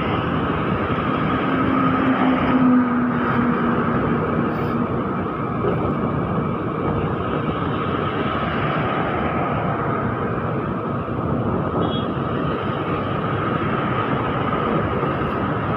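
Steady rush of wind and road noise from a scooter moving at speed, with the scooter's small engine running underneath.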